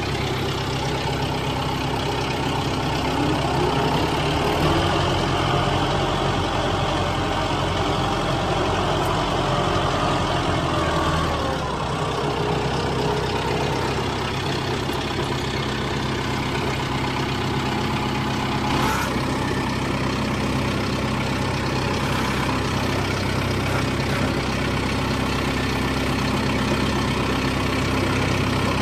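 Farm tractor engine running steadily under load, its speed rising about three seconds in and falling back around eleven seconds. A short knock comes about nineteen seconds in, after which the engine runs on at a different steady pitch.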